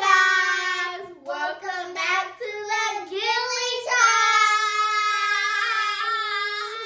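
Two young girls singing loudly together, unaccompanied: a few short sung phrases, then one long held note of nearly three seconds.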